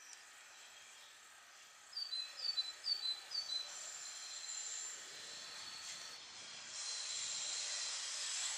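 A bird calls four times in quick succession, each note a short falling chirp. Then a steady high whine sets in, and a hiss grows louder near the end as an E.652 electric locomotive slowly approaches.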